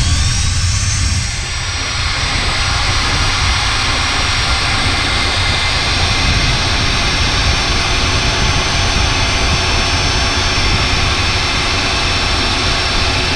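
Antique Milwaukee electric drill starting up, its motor whine rising over about the first second, then running steadily under load as a 9/16-inch bit cuts into the steel wall of a cargo container, with a steady low rumble underneath. The bit is still early in the hole and has not yet broken through.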